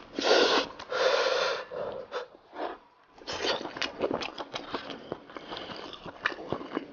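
Close-up eating sounds from someone picking meat off a braised sheep's head by hand. It opens with two loud noisy intakes of air in the first two seconds, then a run of small wet clicks from chewing, lip-smacking and fingers working the meat.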